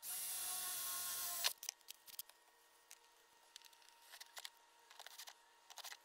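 Power drill running steadily for about a second and a half, then stopping suddenly; scattered light clicks and taps follow.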